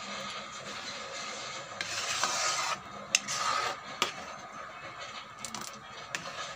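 A spatula scraping and stirring thick tomato sauce in a wide metal pan, louder for about a second around two seconds in, with a few sharp clicks.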